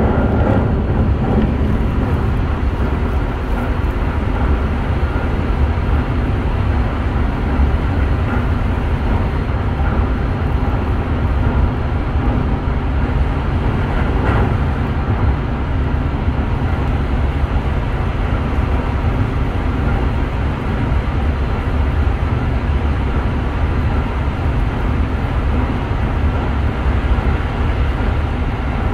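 Steady running noise of a Toei 5500 series electric train heard from inside the passenger car: a continuous low rumble of wheels on rails at speed.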